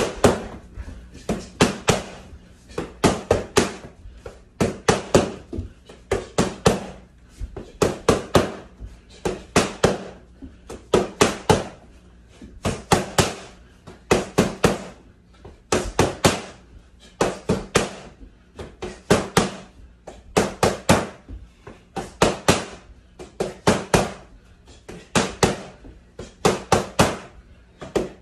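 Boxing gloves smacking focus mitts in rapid three-punch combinations. The sharp smacks come in bursts of about three, one burst every second or so, with no let-up.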